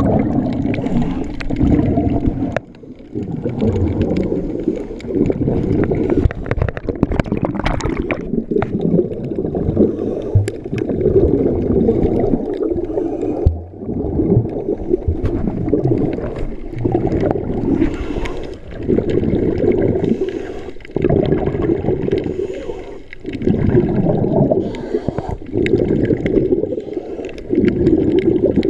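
Muffled underwater gurgling and bubbling of water stirred up around a submerged camera, coming in surges broken by short lulls every few seconds.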